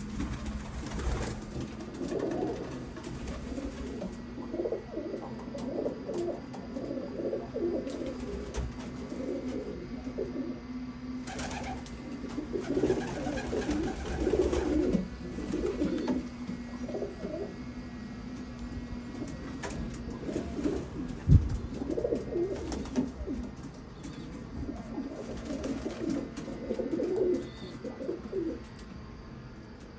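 Birmingham roller pigeons cooing, many calls overlapping throughout, over a steady low hum. A single sharp knock stands out about two-thirds of the way through.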